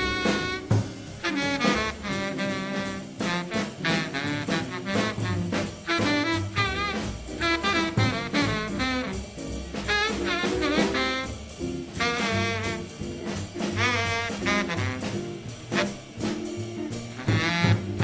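Jazz quintet playing a bebop tune: a horn plays fast runs of notes over double bass and drum kit.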